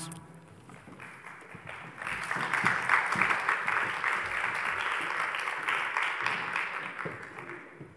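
Audience applauding: faint at first, swelling about two seconds in, then dying away near the end.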